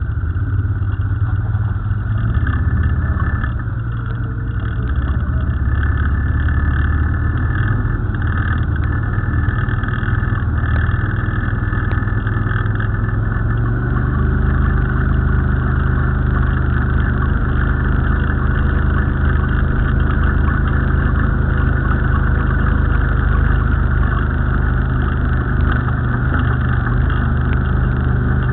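ATV engines running at a low, steady throttle while the quads drive through a shallow creek, with water splashing around the wheels. The engine note settles into a steadier tone about halfway through.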